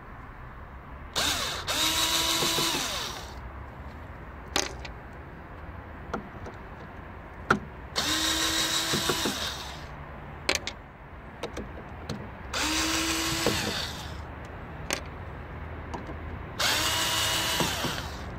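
Cordless screwdriver with a T20 Torx bit backing out the screws of a diesel fuel filter housing lid. There are four short runs of motor whine, each winding down as it stops, with light clicks of the bit and screws between runs.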